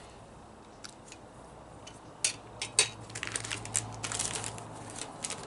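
A few scattered light clicks, then from about three seconds in the crinkling of a clear plastic bag being handled.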